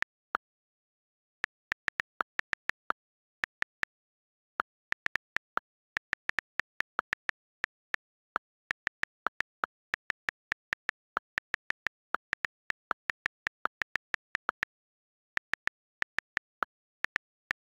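iPad on-screen keyboard key clicks as a message is typed: short, crisp ticks in quick irregular runs of several a second, broken by brief pauses between words.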